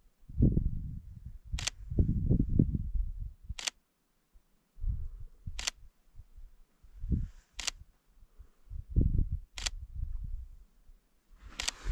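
Six sharp clicks, evenly spaced about every two seconds, with irregular low rumbling bursts between them and a rustling noise rising near the end.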